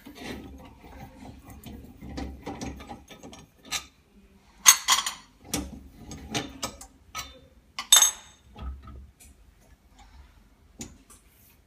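Irregular mechanical clicks, knocks and rattles as the autoclave bubble-removal machine's chamber is opened and the refurbished LCD is taken out. The loudest are two sharp knocks, about five seconds in and again at about eight seconds.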